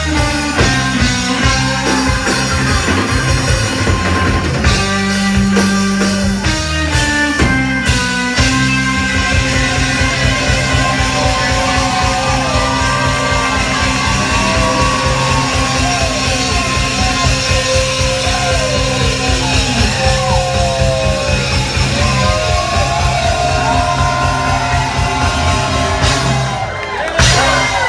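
Live rock band playing: a driving bass line and fast, steady drumming under electric guitar and vocals, with gliding, bending notes in the middle of the song. The music breaks off briefly near the end and then comes back in.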